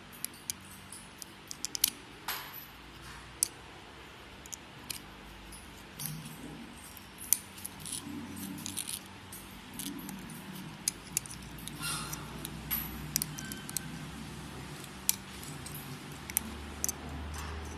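A thin metal pick scraping and prying at the small metal parts inside a Maglite ML300L flashlight: irregular sharp metallic clicks and ticks, the loudest about two and seven seconds in.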